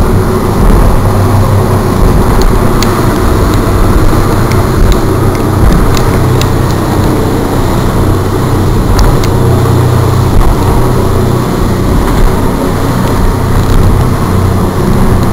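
Motorboat underway at speed: steady engine hum under a loud rush of wind and water as the hull runs through 4-5 foot chop, with a few scattered sharp ticks.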